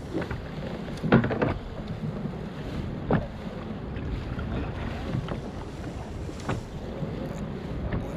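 Wind buffeting the microphone over water lapping at a kayak hull, with a few short knocks, the loudest a quick cluster about a second in.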